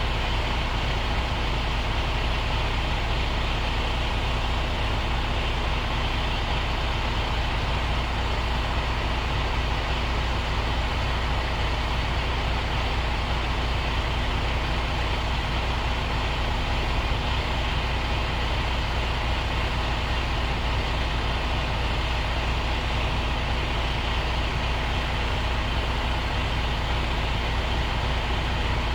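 A truck's diesel engine running steadily with an even low hum, unchanging throughout.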